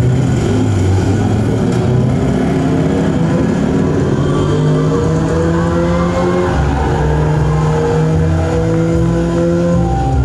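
Car engine sound effect played loud over a PA system as part of a mime act's soundtrack: a steady engine drone with revs that rise in pitch through the middle.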